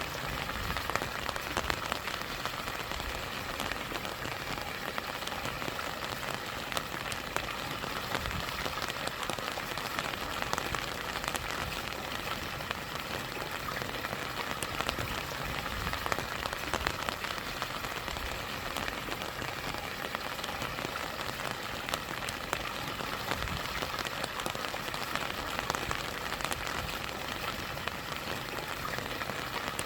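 Steady rain falling, with many individual drops pattering sharply, over a constant rush of stream water.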